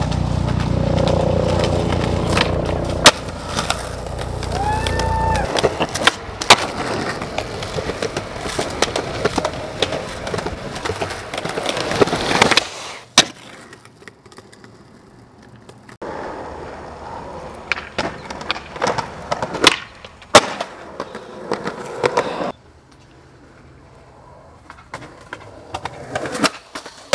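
Skateboard wheels rolling over pavement, with several sharp clacks of the board popping and landing. The sound breaks off abruptly twice and starts again.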